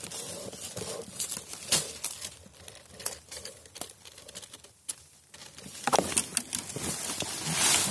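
Dry bamboo leaves and thin stems rustling and crackling, with scattered sharp snaps, as someone moves through a dense bamboo thicket; a short lull about halfway, then the rustling picks up again.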